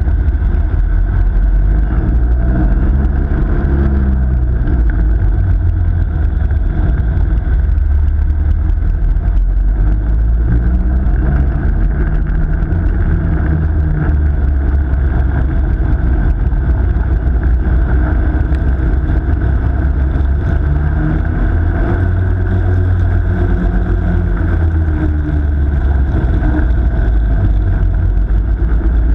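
Ice kart's engine running close to the microphone, with a heavy low rumble; its pitch rises and falls about three times as the kart speeds up and slows through the corners.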